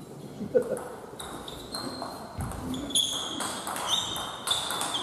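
Table tennis rally in a sports hall: players' shoes squeaking repeatedly on the hall floor in short high squeals, with occasional sharp clicks of the ball.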